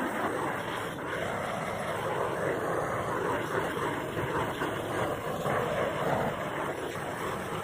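Large propane torch running steadily on a hose from a propane tank, its flame giving a continuous rushing noise as it chars a barn-wood chair back.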